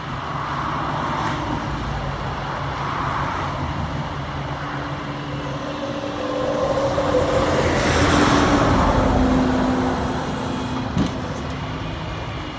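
Flatbed tow truck's engine and winch running steadily as a pickup is pulled up the tilted bed. A passing vehicle swells and fades in the middle, and there is one sharp click near the end.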